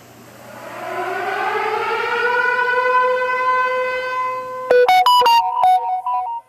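Civil-defense siren sound effect winding up, rising in pitch over about two seconds and then holding a steady wail. Near the end it breaks into a quick run of short tones jumping between pitches, which cuts off abruptly.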